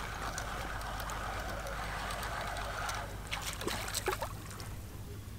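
Spinning fishing reel being wound in with a steady whirr that stops about three seconds in, then splashing as the rig and its catch break the water's surface beside the boat.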